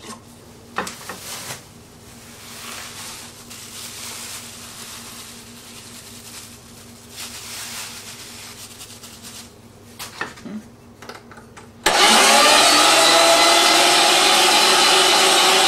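Knocks and rustling as raw meat is loaded into the metal hopper tray of an electric meat grinder. About twelve seconds in, the grinder's motor switches on suddenly and runs loud and steady as the meat is pushed through.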